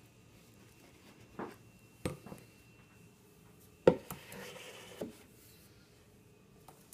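Hollow plastic knocks as a clear plastic jug is handled and set down on a kitchen benchtop: a few light knocks, the loudest just before four seconds in, followed by about a second of plastic rubbing and scraping, and one more knock soon after.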